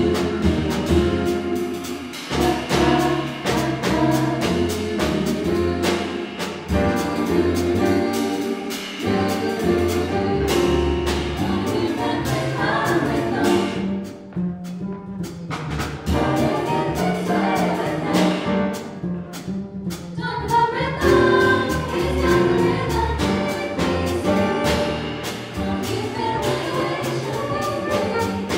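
Live jazz: a vocal ensemble singing together into microphones, backed by piano, upright bass, guitar and a drum kit with cymbals, and a flugelhorn playing along.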